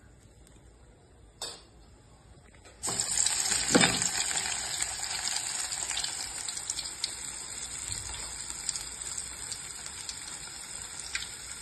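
Lumps of amaranth-leaf and moong dal vada batter go into hot oil in a kadai. About three seconds in the oil breaks into a loud sizzle, which eases into a steady frying sizzle with scattered crackles.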